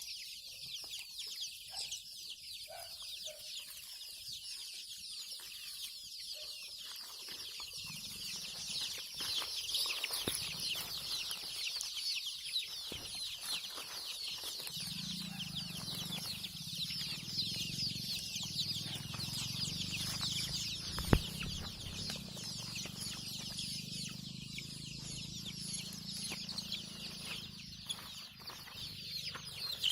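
Large flock of chickens on a poultry farm, a dense, unbroken chorus of clucking and cheeping calls. A low hum comes in about a quarter of the way through, and there is one sharp click past the middle.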